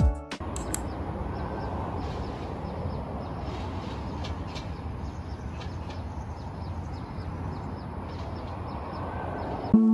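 Steady road and engine noise of a moving coach bus heard from inside the cabin, with faint light ticks and rattles throughout.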